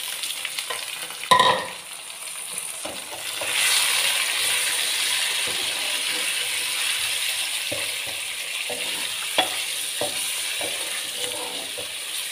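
Raw chicken pieces sizzling in hot oil and fried onions in a metal karahi, turned with a wooden spatula that knocks and scrapes against the pan. There is a loud knock about a second in; the sizzle swells about three and a half seconds in and then slowly settles, with sharp spatula ticks near the end.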